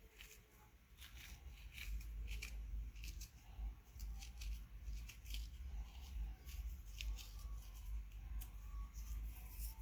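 Faint hand-work sounds of filling cinnamon-roll dough: scattered soft ticks and rustles, as from brushing on melted margarine and sprinkling sugar, cinnamon and raisins, over low bumps on the work surface.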